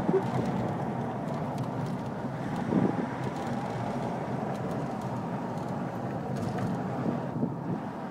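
Road and engine noise heard from inside a moving car: a steady rumble, with a brief thump just after the start and another about three seconds in.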